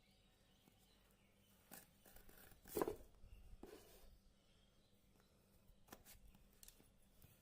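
Faint handling noises, rustling and a few soft clicks, the loudest a short rustle about three seconds in.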